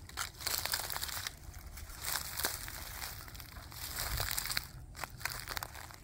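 Footsteps in sneakers on dry fallen leaves, twigs and acorns: the leaf litter crunches and crackles under each step, in repeated bursts with short pauses between them.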